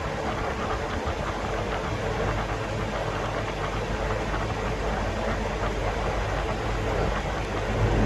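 Mini air source heat pump for a pool running: a steady low mechanical hum with an even rushing noise over it.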